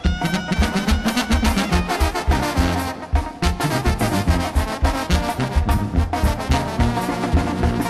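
Brass band music, trumpets and trombones over a steady bass beat.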